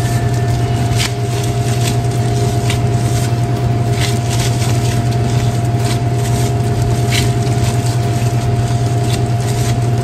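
A steady low machine hum with a constant thin whine over it. Faint soft clicks now and then from gloved hands handling dough on a wooden board.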